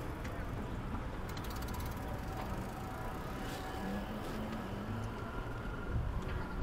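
Steady city street traffic: the rumble of passing cars and tyres, with a brief rapid ticking about a second and a half in.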